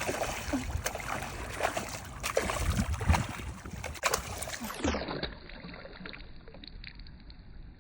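Scattered knocks and splashes of handling aboard a small fishing boat over a low steady rumble; about five seconds in the sound turns suddenly duller and quieter.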